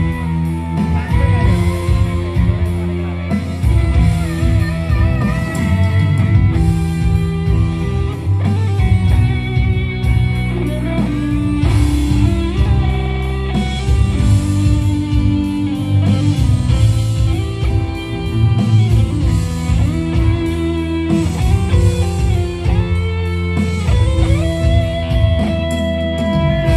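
Live band playing an instrumental through a large PA system: electric guitar to the fore over bass, kendang hand drums and drum kit, with saxophone, in a steady rhythm.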